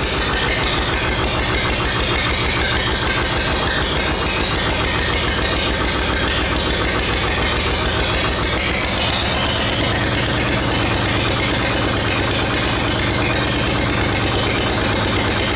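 GM Detroit Diesel 1-71 single-cylinder two-stroke diesel engine running steadily with rapid, even firing pulses. Its low note shifts slightly about ten seconds in.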